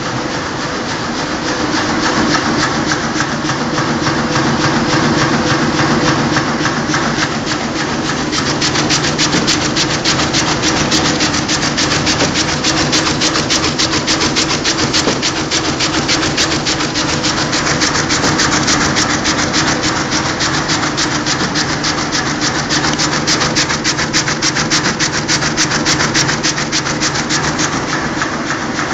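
Sheet-fed offset printing press running at production speed: a loud, steady mechanical clatter with a low hum and a rapid, even ticking that grows sharper about eight seconds in.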